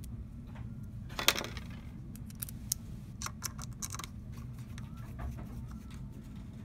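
Small metallic clicks and short scrapes of a hand screwdriver seating in and turning the tiny screws of a RED Epic-X camera's lens mount, with one sharp metal click about a second in.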